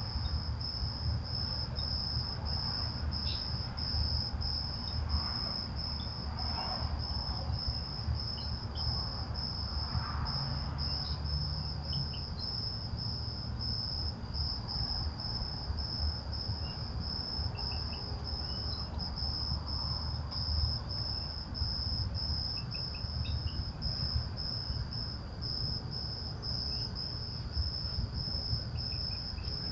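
Crickets chirping in a steady, high-pitched, evenly pulsed trill, over a constant low background rumble.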